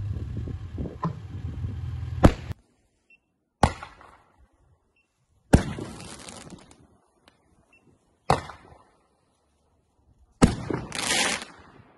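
Firework shots launched one after another from a tube mounted on a homemade tracked robot: five sharp bangs a couple of seconds apart, each trailing off in a fizzing hiss, with a longer, louder hiss near the end. A steady low hum under the first shot stops just after it.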